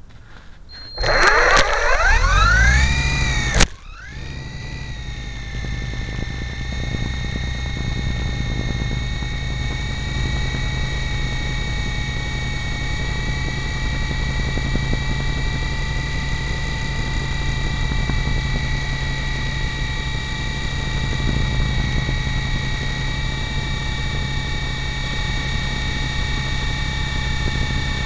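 Lama V4 coaxial RC helicopter's electric motors and rotors, heard from a camera riding on it: about a second in the whine rises sharply as the motors spin up for takeoff, there is a click, and then it settles into a steady whine and hum in flight.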